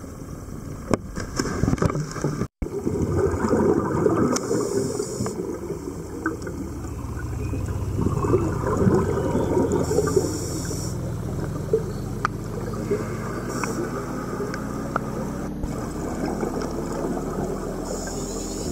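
Scuba diving heard underwater through a camera housing: gurgling bubbles, then short hissing pulses every few seconds from a diver's regulator breathing. A steady low boat-engine hum slowly rises in pitch in the second half.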